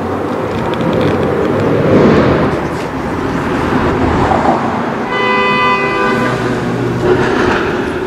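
A passing vehicle rumbles and swells, and a horn sounds steadily for about a second, five seconds in.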